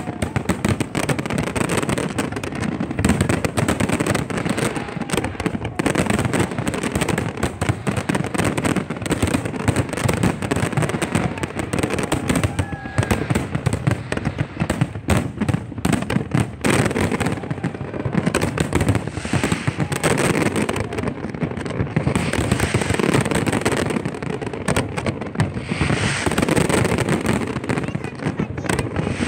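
Large aerial fireworks display: a dense, continuous barrage of shell bursts with crackling, the bangs following each other too fast to count.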